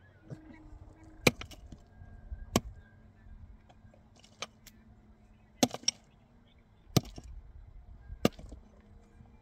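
Pickaxe striking hard, stony earth: five sharp blows about a second and a half apart, with a longer pause between the second and third. A couple of smaller knocks follow some of the blows.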